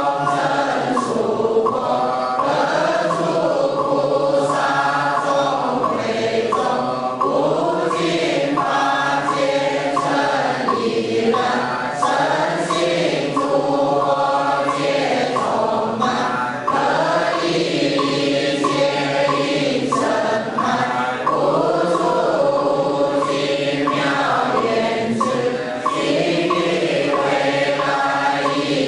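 Buddhist congregation chanting a sutra in unison, many voices on a slow melodic recitation, paced by the strokes of a wooden fish (muyu).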